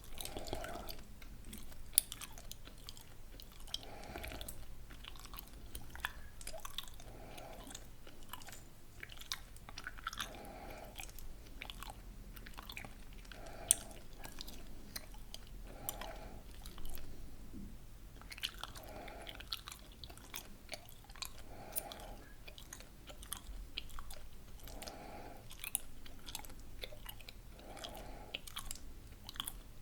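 Gum chewed close to the microphone: a steady run of wet smacks and small clicks, with a couple of sharper clicks along the way.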